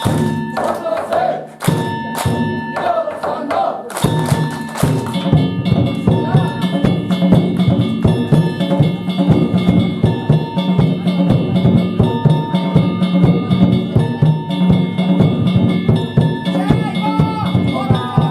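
Danjiri float's festival music: a drum and small hand gongs beaten in a fast, steady rhythm that sets in about four seconds in, after a few separate knocks. Voices shout near the end.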